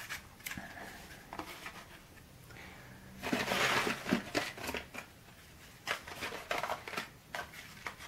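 Cardboard matchboxes being handled and set down on a wooden tabletop: light rustling, small taps and scrapes, with a longer rustle about three seconds in.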